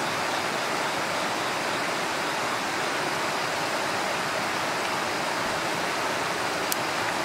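Wood campfire burning under a Nanbu cast-iron pot of simmering pork-miso soup: a steady, even hiss, with one small click near the end.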